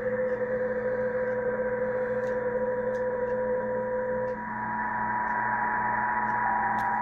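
PSK31 digital-mode signals on the 20-metre band, 14.070 MHz, received in upper sideband on a Tecsun PL-990x shortwave radio: several steady audio tones over band hiss, the lowest of them stopping about four seconds in.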